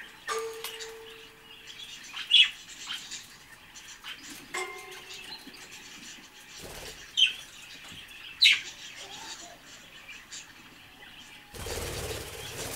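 Budgerigar chirping, with three loud, short, sharp chirps and softer calls between them, then a burst of wing flapping near the end.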